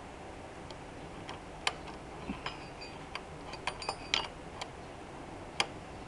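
Irregular light metallic clicks and ticks of an L-wrench turning a cylinder-head bolt on a Honda CG 150 engine. The bolt turns without ever tightening because its threads in the aluminium head are stripped.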